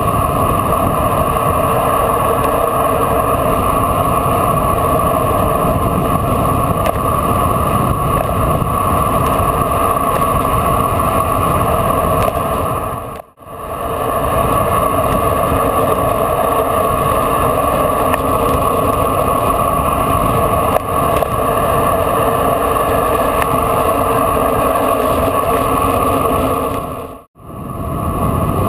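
Steady rush of wind and road noise on a bicycle-mounted camera during a fast descent. It dips out briefly about halfway through and again near the end.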